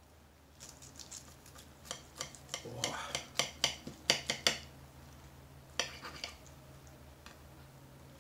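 Knife and fork clinking and scraping on a plate as a piece of breaded fried catfish is cut up: a quick run of sharp clicks over the first few seconds, then a few more about two seconds later.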